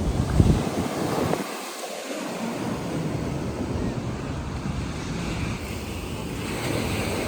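Ocean surf washing on the beach, with wind buffeting the microphone; the wind rumble drops away briefly about a second and a half in.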